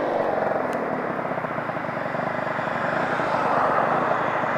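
Small scooter engine idling steadily with a fast, even putter while the scooter stands still.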